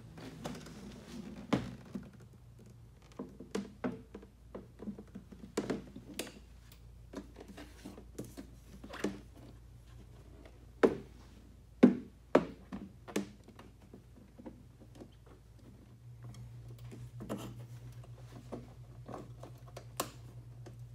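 Hard motorcycle saddlebag being handled and fitted onto its mounts: scattered knocks and clunks, the loudest a few in quick succession about eleven to thirteen seconds in. A low steady hum comes in partway through.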